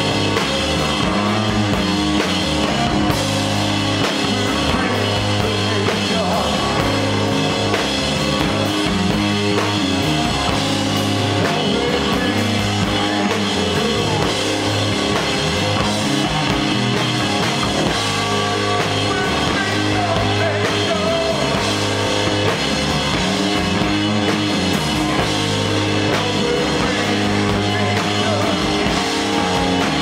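A loud live stoner rock band playing, with electric guitars, bass guitar and drum kit.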